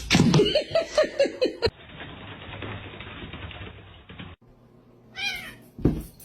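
Cat meowing: a quick run of short, falling calls in the first couple of seconds, then one more meow about five seconds in, followed by a sudden thump.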